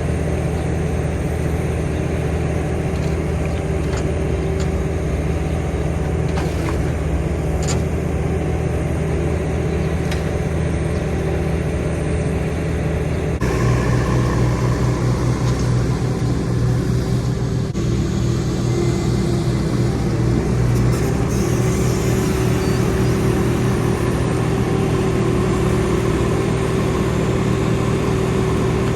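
Vehicle engine running steadily while driving, with road rumble. The engine note changes abruptly about halfway through.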